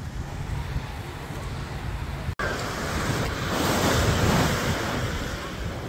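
Ocean surf: waves breaking and washing on the shore, swelling louder about halfway through and then easing off, with wind buffeting the microphone. A sudden momentary dropout cuts the sound about two seconds in.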